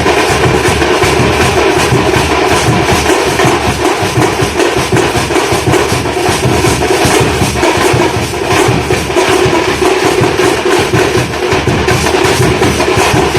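A drum troupe playing loud, fast, continuous drumming, with dense strikes that run on without a break.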